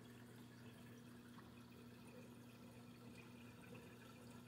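Near silence: a faint steady hum with light trickling and dripping of water, from a reef aquarium's pumps and water circulation.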